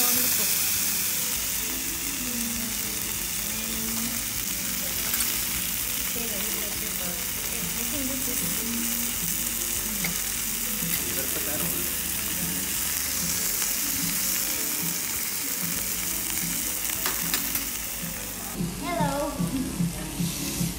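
Spicy marinated pork belly sizzling on a Korean barbecue grill plate, a steady hiss of meat and fat frying. About two seconds before the end the sizzle gives way to background music.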